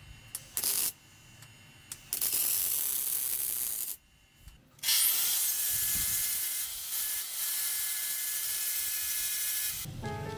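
Paint spraying onto metal, a hiss in bursts: a short spurt, a spray of about two seconds, a brief pause, then a long spray of about five seconds. Music comes in near the end.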